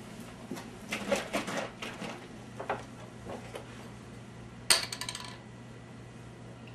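Tableware clinking and knocking: a run of light knocks, then one sharp, ringing clink past the middle, over a low steady hum.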